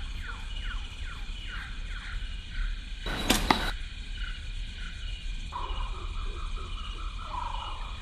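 A single bow shot about three seconds in: a brief, sharp burst of the bowstring's release and the arrow's flight, ending in a second click as the arrow strikes the target.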